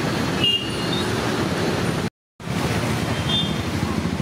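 Steady road traffic noise from passing motorbikes and cars, with a short high tone about half a second in; the sound cuts out completely for a moment a little after two seconds.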